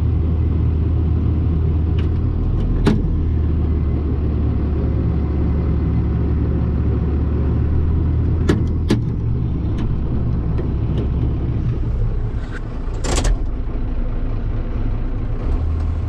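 John Deere 7810 tractor's diesel engine running steadily, heard from inside the cab, its note dropping about nine seconds in. A few sharp clicks and knocks are scattered through it, one near the three-second mark and a longer one near the end.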